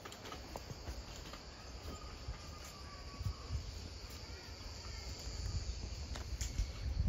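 Steady high-pitched drone of insects, with irregular low thumps from walking underneath.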